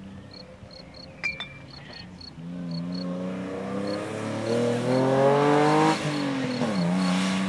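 Ford Capri hillclimb car accelerating hard, its engine pitch rising in several steps through the gear changes as it approaches and gets louder. Around six seconds in the pitch drops sharply as it goes past and pulls away.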